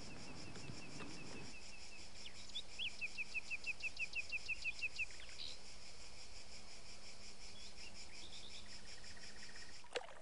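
Dusk countryside ambience: a steady, pulsing chirring of crickets, with a bird giving a fast run of short repeated notes, about six a second, from about two and a half to five seconds in.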